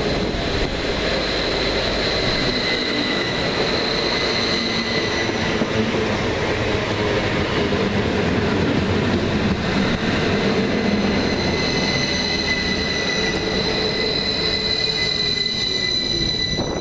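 Northern Rail Class 333 electric multiple unit passing close by, its wheels and running gear rumbling steadily. A high steady whine and a fainter lower one ride over the rumble, swelling twice, with more tones joining near the end.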